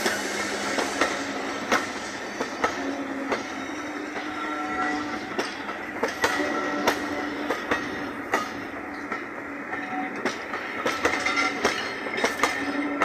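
Railway passenger coaches rolling past close by, their wheels clicking over the rail joints at uneven intervals, with short wheel squeals now and then.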